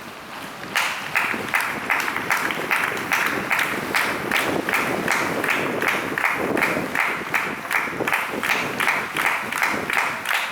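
Stadium crowd clapping in unison, a steady beat of about two and a half claps a second that starts about a second in, over a hiss of rain and wind.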